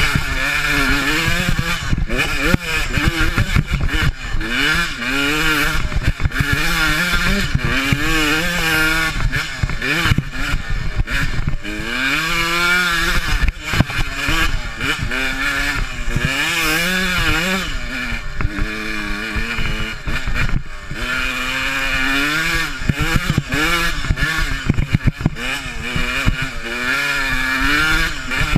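Yamaha dirt bike engine revving up and down over and over as the bike climbs a rough, sandy trail, with frequent short knocks and rattles.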